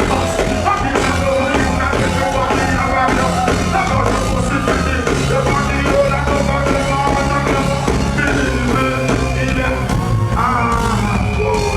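Live reggae band playing at a concert: heavy bass and a steady drum beat under melodic lines.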